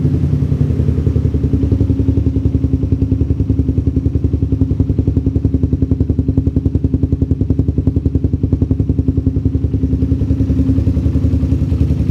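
Suzuki Satria FU 150's single-cylinder four-stroke engine idling steadily through a long Arrow Trophy titanium silencer, warming up after a start on an unused bike, with a fast, even exhaust pulse.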